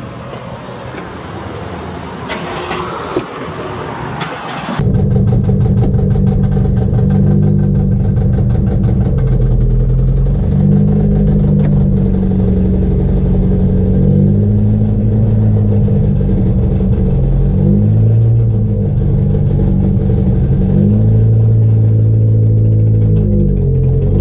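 Cars idling with street traffic for about five seconds, then an abrupt switch to loud music with a heavy bass line and a fast steady beat.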